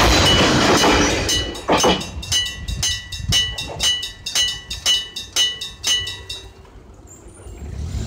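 The tail of a Kominato Railway Kiha 200 diesel railcar rumbling over the crossing, with the level crossing's electric bell warning ringing 'chin-chin-chin' in rapid, even strikes. Once the train has cleared, the bell rings on alone and stops about six and a half seconds in, as the crossing reopens.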